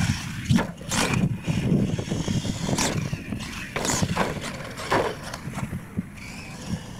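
Radio-controlled monster truck's motor whining up and down in quick bursts of throttle as it is driven hard. Short knocks and thumps come from the truck's wheels and chassis hitting the dirt and ramps.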